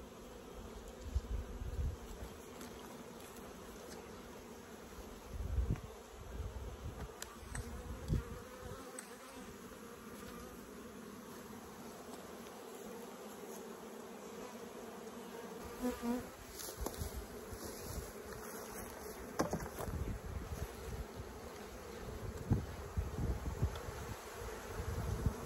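Honeybees buzzing in a steady hum around open hives, the colony stirred up by the harvest and split. A few knocks and low rumbles as hive boxes and lids are handled.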